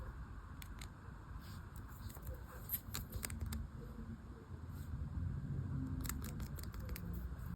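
Small hard objects from a toy dig kit being handled, giving scattered light clicks and taps in clusters over a low rumble; the sound cuts off suddenly at the end.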